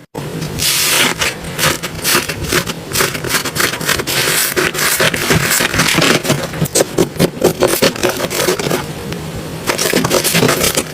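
Slime being squished and worked by hand, giving a dense, continuous run of crackling clicks and pops.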